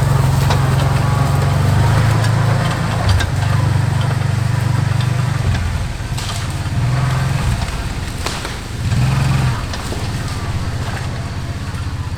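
An engine running steadily at low revs, its note shifting slightly now and then, with a few sharp knocks.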